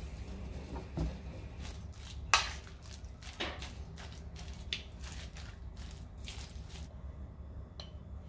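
Spoon stirring a thick oat, banana and peanut butter cookie dough in a ceramic bowl: irregular scrapes and knocks against the bowl, the loudest about two seconds in, stopping about a second before the end.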